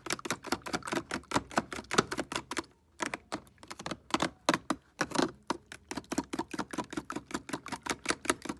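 Fork beating eggs and vanilla essence in a bowl: quick clicking taps of the fork against the bowl, about six a second, with a brief pause about three seconds in and another about a second later.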